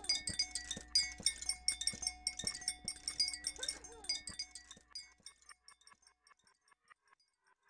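Electronic music from a Max/MSP patch: granular-synthesis grains as dense, rhythmically repeating high clicks over stacked live loops with steady held tones and a low hum. About five seconds in, the loops and hum stop, leaving only sparse faint grains.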